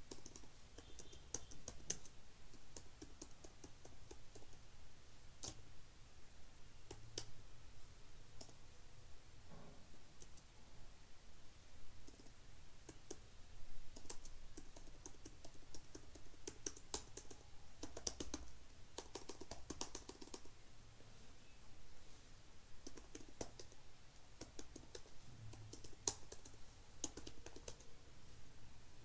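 Typing on a computer keyboard: irregular keystrokes and short runs of keys, with the densest flurry of typing about two-thirds of the way through.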